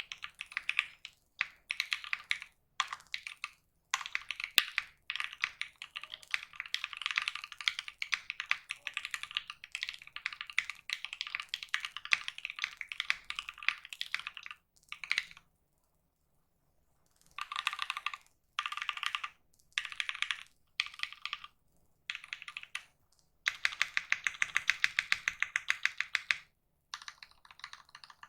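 Typing on a custom mechanical keyboard with a polycarbonate plate and Krytox 205g0-lubed linear switches: quick runs of keystrokes broken by short pauses, with a silence about two-thirds of the way through and a fast, even burst of strokes near the end.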